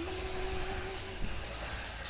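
Instrumental background music: a melody note held for about a second, over a steady rushing noise with a low rumble.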